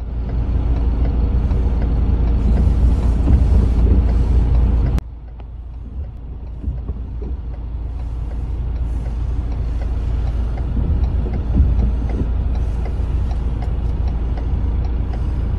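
Excavator's diesel engine running close by, a loud steady low rumble. About five seconds in it cuts abruptly to a quieter steady engine rumble with scattered small knocks.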